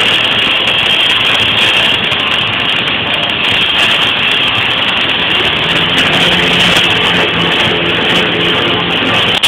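Welding arc on aluminum, a steady loud buzzing crackle that runs without a break.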